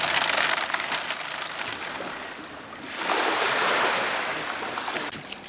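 Surf on a gravelly beach: water washing over the shore with a crackly fizz of small clicks, then a wave swelling in about three seconds in and fading away.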